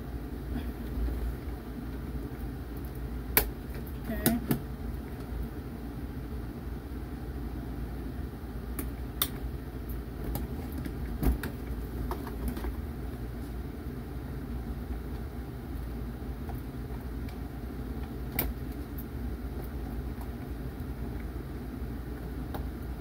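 Cardboard toy box and plastic playset pieces being handled: a handful of sharp clicks and knocks, several seconds apart, over a steady low hum.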